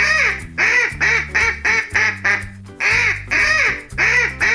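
Duck quacking in quick runs, a longer quack followed by several shorter ones, over background music.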